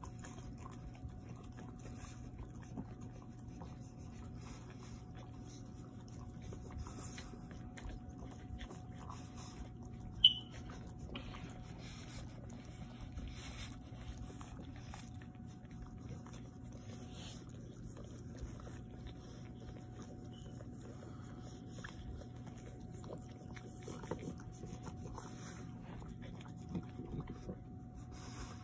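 Faint sounds of a French bulldog mother and her newborn puppies, with one short, sharp high squeak about ten seconds in. A steady low hum runs underneath.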